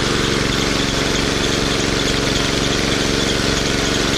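Old Yamaha TT dirt bike's single-cylinder four-stroke engine idling steadily, just brought back to life.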